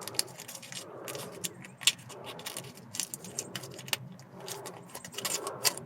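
Irregular light metallic clicks and rattles from the rear brake pad hardware clips being handled and greased with brake lube.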